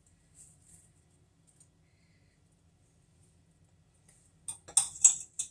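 Near silence with a faint low hum, then near the end a quick run of sharp clicks and knocks of kitchenware being handled, the loudest about five seconds in.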